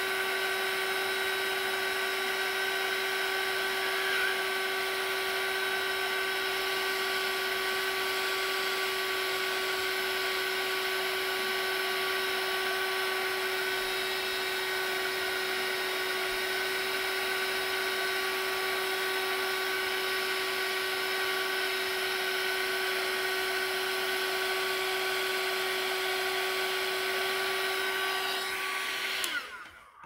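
Small handheld hot-air heat gun running steadily, a fan noise with a steady whine, blowing hot air onto a phone's screen to soften the glue under the display. It is switched off just before the end and its sound cuts off.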